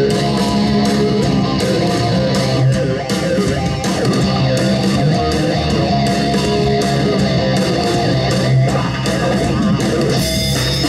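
Loud guitar-driven rock music played back through hi-fi speakers on a small Class D amplifier, turned up high.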